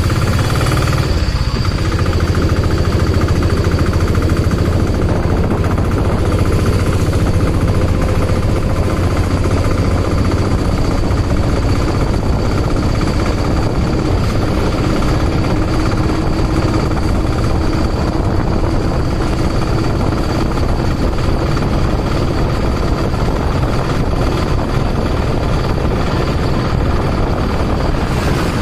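Auto-rickshaw engine running steadily under way, a loud low rumble heard from inside the open cabin, with road and wind noise on top.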